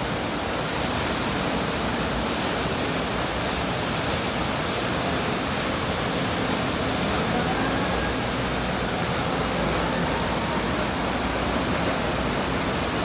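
The Calavon river in flood, a swollen muddy torrent rushing past at high volume: a steady, loud rush of water with no let-up.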